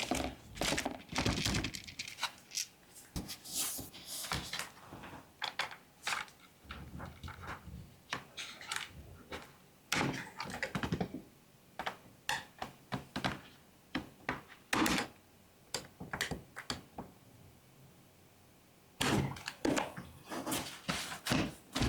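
Irregular clicks, taps and knocks of a laptop and small tools being handled on a desk, with a quieter pause in the middle and a busy run of clicks near the end.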